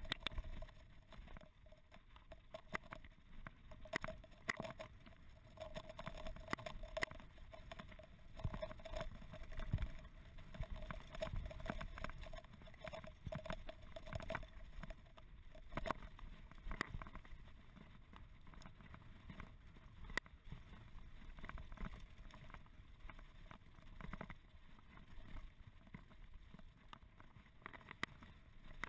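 Mountain bike rattling and knocking over a bumpy grass-and-dirt trail on a fast descent, with a low rumble of wind and ground noise and a steady whirring tone through about the first half.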